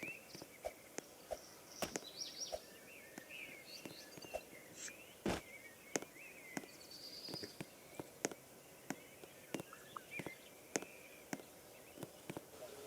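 Faint footsteps, a soft step or click every half second or so, over a light hiss, with faint high squeaks in between.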